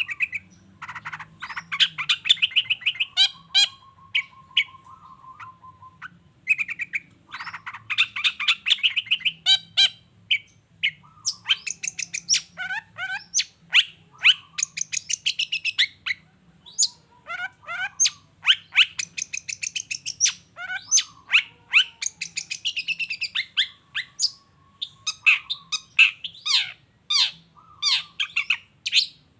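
Long-tailed shrike (cendet) in full song: fast chattering trills and sharp repeated notes, broken by a few low, drawn-out whistles.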